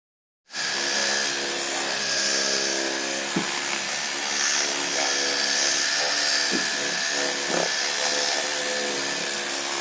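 Electric rotary polisher with a wool buffing pad running against a plastic headlight lens, cutting in suddenly about half a second in and then holding a steady motor whine. It is buffing off yellowed oxidation with coarse polishing compound.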